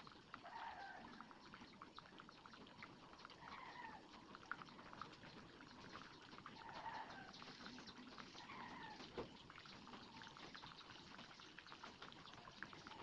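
Two eggs frying in a non-stick pan: a faint, steady crackle of sizzling. A few short animal calls sound faintly in the background, about four of them, one every two to three seconds.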